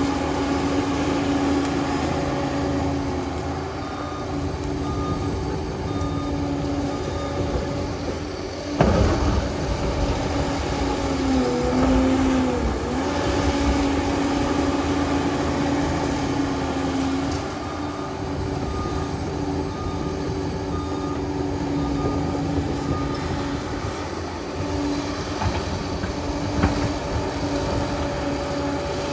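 Liebherr 746 crawler dozer running, its diesel engine pitch dipping briefly under load partway through. A reversing alarm beeps in two spells, and there is a sharp clank about nine seconds in.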